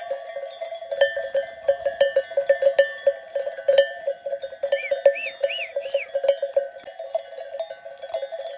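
Many sheep bells on a flock clanking together in a dense, irregular jangle. Four short high chirps sound about halfway through.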